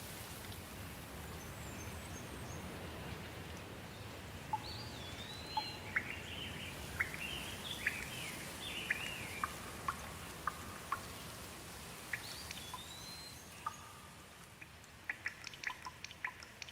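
Steady rain with a songbird singing a run of chirps and slurred whistles through the middle. Near the end the rain eases and single water drops fall in quick succession.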